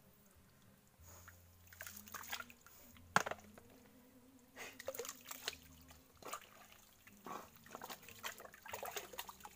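Hands digging for clams in wet mangrove mud and puddled water: a run of short wet splashes and squelches, with one sharp click about three seconds in.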